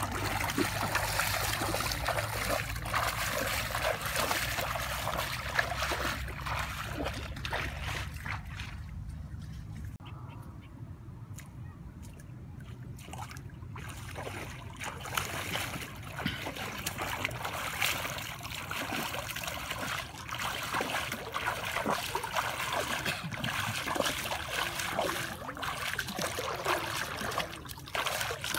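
Water splashing and sloshing as a person wades barefoot and works with their hands in shallow muddy water, with a quieter stretch about a third of the way through.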